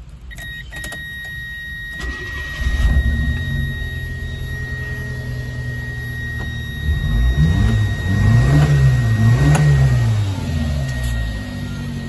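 Subaru Sambar's small EN07 four-cylinder engine starting about two seconds in and settling to an idle. It is then revved twice, the pitch rising and falling each time, before dropping back to idle.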